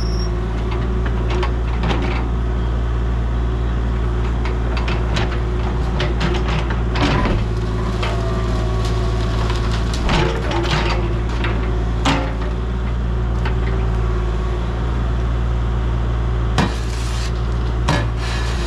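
Heavy diesel equipment engine running steadily, with repeated sharp metal clanks, knocks and scrapes over it, typical of a machine working at an oil tank excavation.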